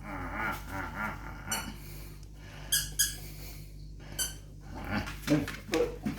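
Squeaky plush dog toy squeaking under a collie puppy's bites: two sharp squeaks in quick succession near the middle and another a second later, with the puppy's own wavering vocal sounds at the start.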